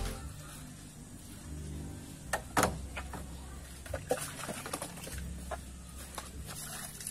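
Water being scooped from a plastic bucket and splashed over a motorcycle: a scattered run of short splashes and knocks over a low background hum, the sharpest two about two and a half seconds in.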